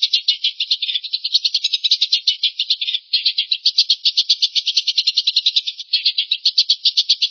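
A bird's rapid, dry rattling trill of about nine notes a second, sung in long runs with short breaks about three and six seconds in.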